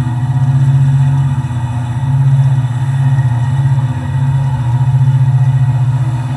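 HO-scale model train hauling a string of ore hopper cars: a loud, steady low hum that swells and eases gently as the train rolls by.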